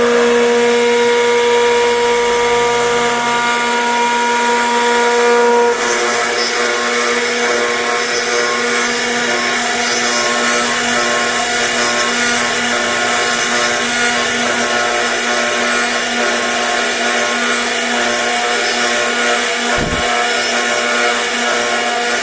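CNC router spindle running with a steady whine while carving a wooden bed panel; its pitch changes abruptly about six seconds in.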